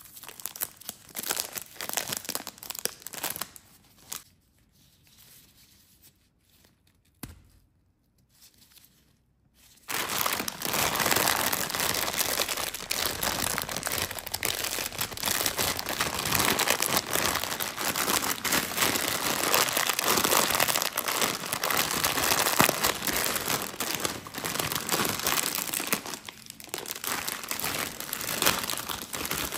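Snack wrappers crinkling and tearing in gloved hands: a Kit Kat Chunky's paper-and-foil wrapper being peeled open at first, then a plastic bag of lollipops crackling. Scattered crackles give way to a few seconds of near quiet with a single click, then dense, continuous crinkling from about ten seconds in.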